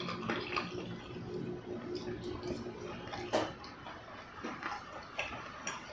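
Close-miked chewing of a chewy buckwheat crepe: soft, wet mouth sounds and small clicks, with one sharper click about three and a half seconds in.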